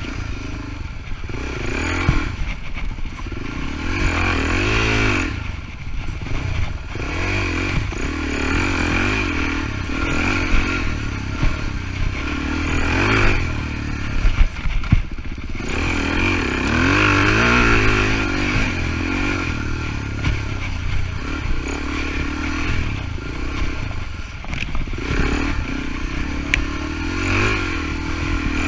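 Suzuki DR-Z400E's single-cylinder four-stroke engine being ridden hard on a dirt trail, its pitch sweeping up and falling again and again as the throttle is opened and closed. The bike's rattles and knocks over the rough ground cluster about halfway through.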